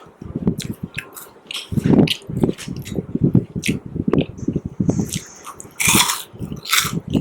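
Chewing and crunching food close to a microphone: a quick, irregular run of crisp crunches and bites that get louder and denser about two seconds in.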